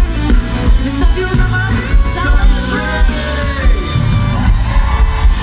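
Live band and vocal group performing: a steady drum beat under several voices singing, with a downward-sliding vocal line about three seconds in.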